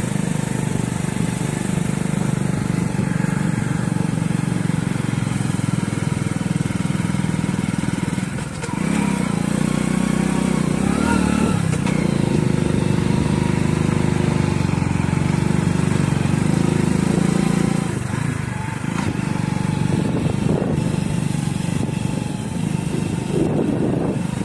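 Motorcycle engine running steadily while riding over a rough, rocky dirt track. The engine note shifts about eight and a half seconds in and again around eighteen seconds.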